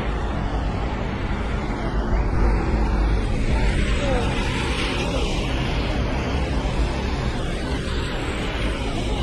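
Steady hiss of rain and of car traffic on wet streets, with a constant low rumble underneath.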